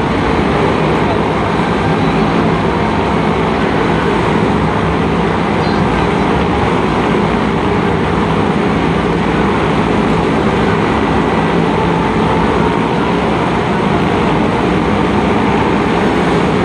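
Several motorcycle engines running continuously at high revs as the bikes ride inside a steel-mesh globe of death. Together they make a loud, steady drone.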